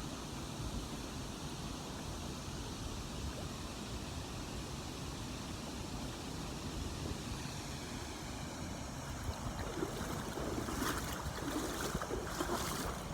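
Steady rushing of river water at a waterfall, heard up close, with a few short, louder bursts of noise near the end.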